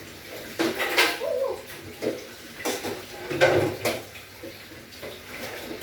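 Clattering of dishes and household items being handled, with several knocks and clinks about a second apart.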